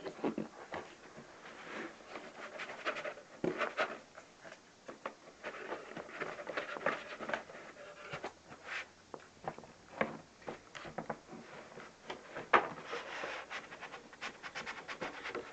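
Cardboard box and polystyrene packing rustling, scraping and knocking as a boxed hi-fi unit is worked out of it by hand, with a sharp knock about twelve seconds in and a quick run of clicks near the end.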